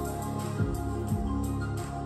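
Instrumental background music with sustained tones and a soft, steady beat.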